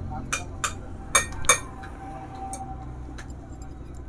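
Sharp metallic clinks of a ring spanner and feeler gauge against the rocker-arm tappet adjuster of a Honda CB Unicorn 160 cylinder head while the valve clearance is being set. There are about four clinks in the first second and a half and a fainter one later, over a low steady hum.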